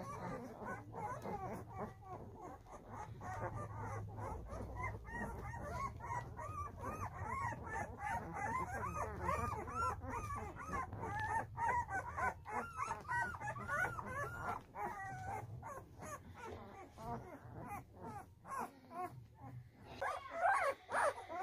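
A litter of Saint Bernard puppies whimpering and yipping: many short, high-pitched cries overlapping without a break, getting louder near the end.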